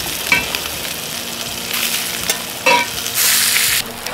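Bacon cubes sizzling in a hot cast iron skillet as their fat renders, stirred with metal tongs that clink against the pan twice. A louder burst of sizzling comes near the end.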